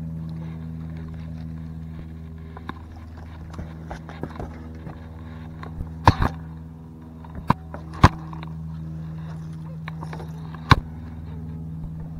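Steady hum of a boat motor, with a handful of sharp knocks and clicks on the boat, the loudest about six, eight and eleven seconds in.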